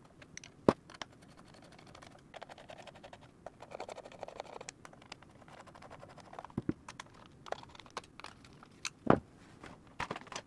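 Guitar pedal's back plate being set on its enclosure and its screws driven in with a screwdriver: a few sharp clicks and knocks, with a stretch of fine rapid ticking and scraping in the middle as a screw turns in.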